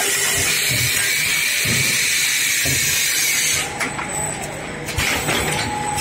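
Automatic cutting-disc moulding machine running: a steady hiss with irregular low mechanical knocks. About four seconds in the hiss eases for about a second, then comes back.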